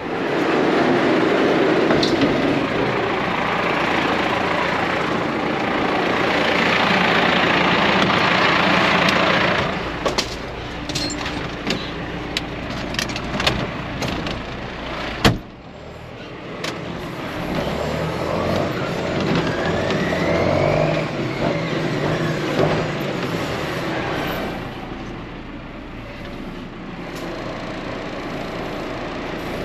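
John Deere 6430 tractor running while a trailer is parked and unhitched: a loud stretch of hissing noise, then a run of clicks and a single sharp knock about halfway through, a tone that rises and falls, and a quieter steady running sound to the end.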